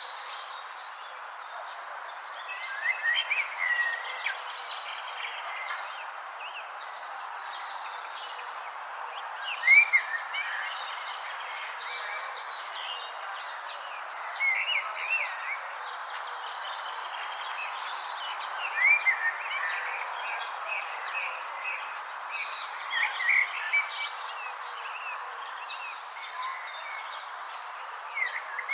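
Nature ambience: insects trilling steadily at a high pitch over an even hiss, with clusters of short chirping calls every four to five seconds, the loudest about ten seconds in.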